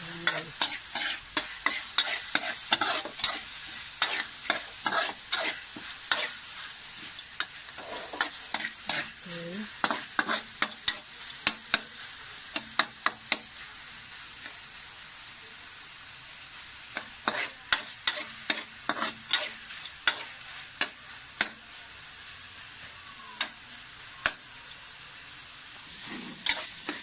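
Pork pieces sizzling in a metal frying pan while a metal spoon stirs them, clicking and scraping against the pan in quick irregular strokes. The stirring slows to a few strokes twice, leaving mostly the sizzle.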